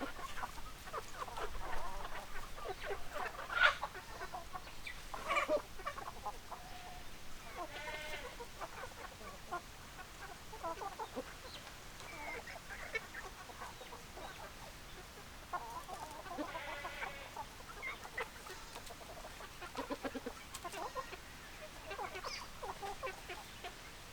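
Chickens clucking: many short calls scattered throughout, with a few drawn-out squawks, the sharpest and loudest about four seconds in.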